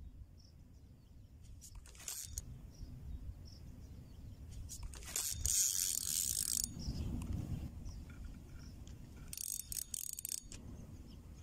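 Outdoor ambience with a steady low wind rumble on the microphone, broken by a few short bursts of rustling: one about two seconds in, the loudest around the middle, and a cluster near the end.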